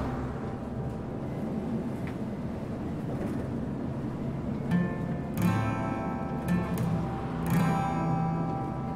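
Acoustic guitar music, with strummed chords ringing out about halfway through and again near the end, over the steady low rumble of a city bus running.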